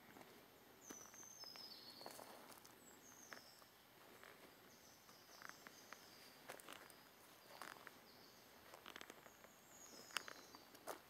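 Faint footsteps on a dry forest floor, irregular soft steps with a sharper click about ten seconds in, with short high falling bird chirps several times.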